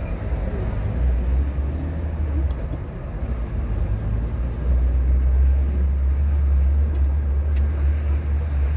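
Car driving: a steady low engine and road rumble that grows louder about halfway through.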